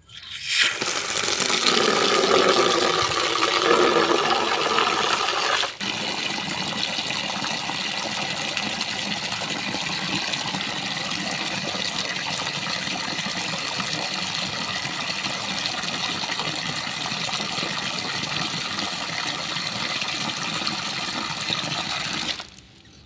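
A stream of water pouring into an empty black plastic tub and splashing as it fills. The pour starts right away and is loudest for the first five or six seconds, then settles to a steady rush and stops shortly before the end.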